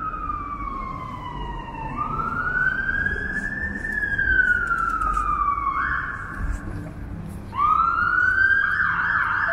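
Emergency vehicle siren wailing, its pitch sliding slowly down and up every few seconds, with two siren tones overlapping near the end. Street traffic rumbles underneath.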